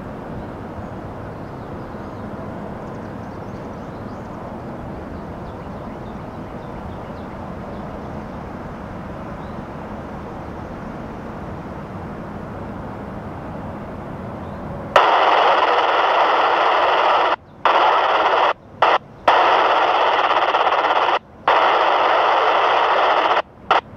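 A steady rumbling noise, then about fifteen seconds in a railroad scanner radio breaks into loud static hiss that cuts out and back in sharply several times as a transmission keys on and off.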